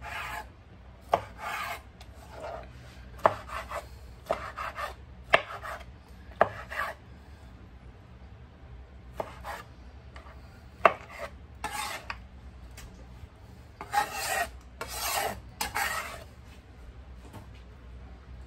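A run of short rasping, scraping strokes, each about half a second, several starting with a sharp knock, coming in three bunches with brief pauses between.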